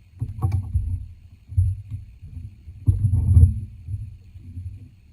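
Handling noise from working at a fly-tying vise: irregular low thumps and rumbling, with a sharper click about half a second in and another about three seconds in.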